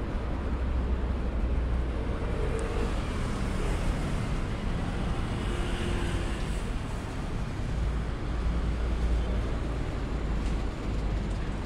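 Steady low rumble of road traffic and car engines running nearby, with no single event standing out.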